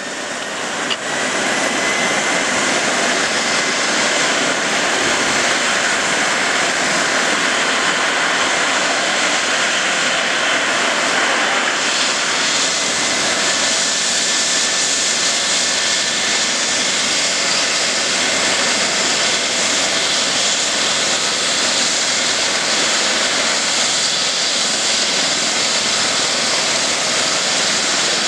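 Eurocopter EC135 air-ambulance helicopter running on the ground before takeoff: a steady turbine whine under the noise of the turning rotor. The sound fades in over the first second or so, then holds level.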